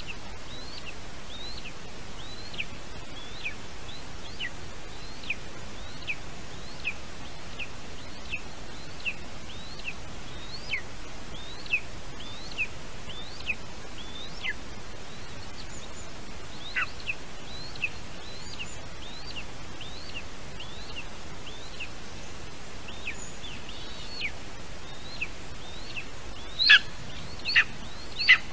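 Eagle chick calling with short, high chirps that fall in pitch, about one a second, growing louder near the end, over a steady background hiss.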